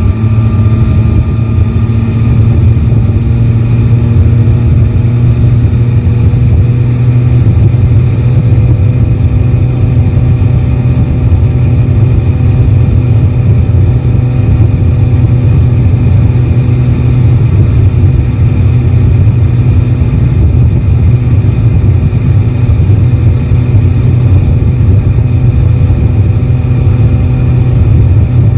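Yamaha Tracer 9 GT's inline three-cylinder engine running at a steady, unchanging pitch, heard from the rider's seat, with a faint rise in tone near the start.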